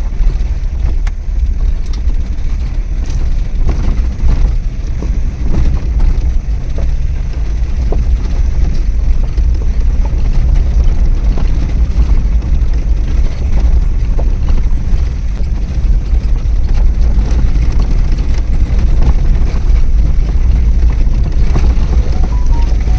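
Car driving along a road, a steady low rumble of engine and tyres, with a few faint knocks from the road.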